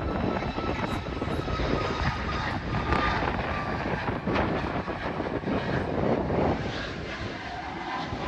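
Jet airliner engines running as the plane passes: a steady loud rush with a thin high whine over it.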